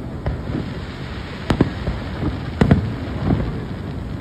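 Fireworks shells bursting overhead: a sharp bang about a second and a half in, then two close together near the three-quarter mark, over a steady rumbling background.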